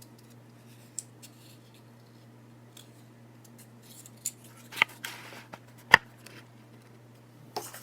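Small plastic toy pieces and packaging being handled: scattered light clicks, two sharper clicks about five and six seconds in, and a brief crinkle of packaging between them, over a faint steady electrical hum.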